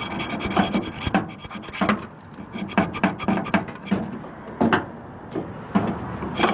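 Scrap metal being handled and scraped: irregular sharp clinks and knocks several times a second, with rubbing and scraping between them.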